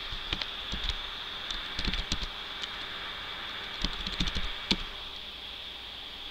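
Computer keyboard keys clicking in a few short bursts of typing, over a steady high-pitched hiss.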